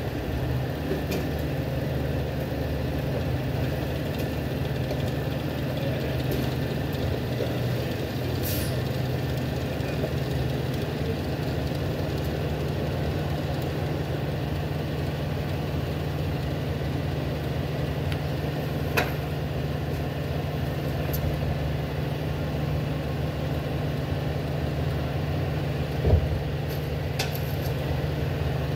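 Freightliner trash truck's engine running steadily at low speed, with a few sharp clicks and one short thump near the end.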